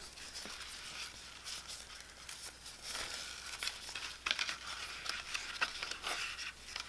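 Paper and a traveler's notebook being handled close by: light rustling and crinkling with small scattered clicks, as the notebook's elastic cord is worked into a knot.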